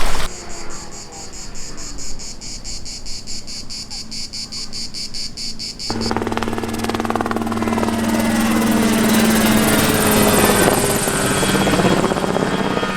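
Insects chirping in a rapid, even pulse for about six seconds, then a sudden change to a running engine that grows louder, with a steady hum and pitch sweeping up and down.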